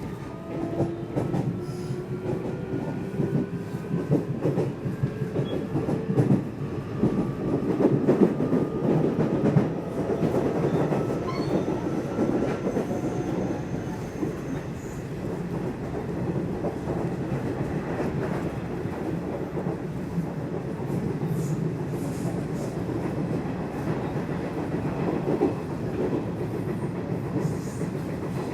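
Nishitetsu electric commuter train running between stations, heard from inside the car: wheels rumbling on the rails with scattered rail-joint clicks, and a motor whine that slowly rises in pitch through the first half as the train gathers speed.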